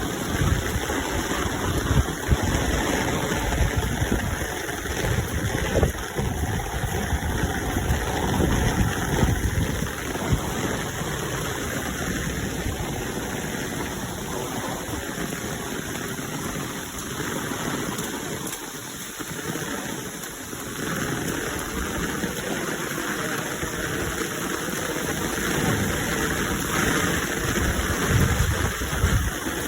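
Steady rain noise with an uneven low rumble underneath.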